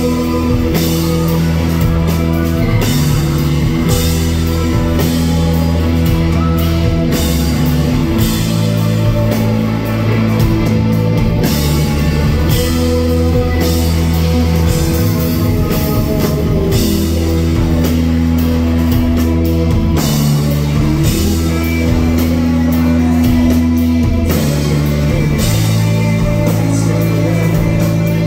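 A rock band playing live and loud: electric guitars, bass guitar, keyboards and a drum kit keeping a steady beat, heard through the concert PA.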